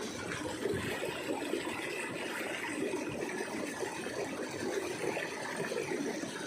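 Steady rushing of a fast-flowing irrigation ditch.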